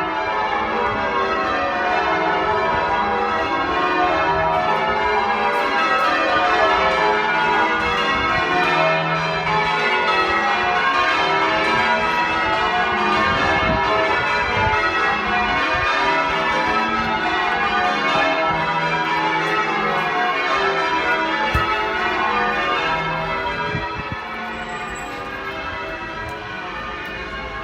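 Change ringing on a ring of ten church bells with a 17 cwt tenor in E: a continuous, rapid run of overlapping bell strokes in shifting order. The ringing becomes somewhat quieter about four seconds before the end.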